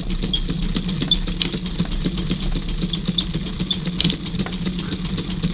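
Facit C1-13 mechanical calculator being worked over and over, a fast, even run of clicks from its mechanism, about ten a second, as its counter is counted up.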